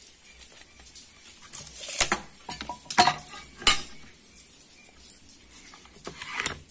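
A metal ruler clinking and scraping against a wooden board as it is set in place for marking, with sharp clicks about two, three and three and a half seconds in and a few more near the end.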